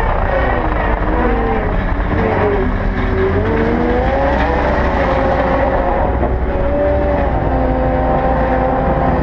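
Caterpillar 299D XHP compact track loader running, its diesel engine droning under a whine from the drive whose pitch dips about two to three seconds in and climbs back up as the machine changes speed.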